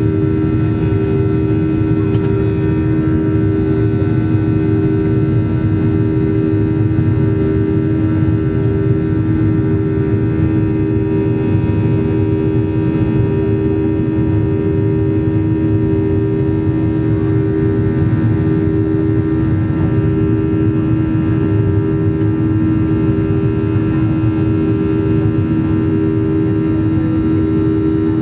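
Boeing 737-800's CFM56-7B turbofan engines at climb power after takeoff, heard inside the cabin beside the engine: a loud, steady drone with a deep rumble and a strong, slightly wavering hum.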